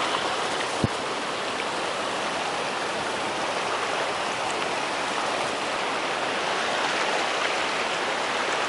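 Fast river rapids rushing steadily, with one short low thump about a second in.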